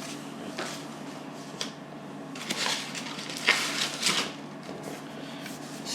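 Small objects being handled on a work surface: a few light knocks and rustles spread through, over a low steady hum.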